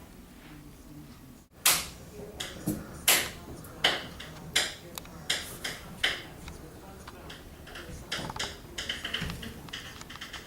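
Kitten at play: a run of irregular taps and knocks, roughly one every second, loudest in the first half, then lighter, quicker tapping, as the kitten scampers and bats its toy about.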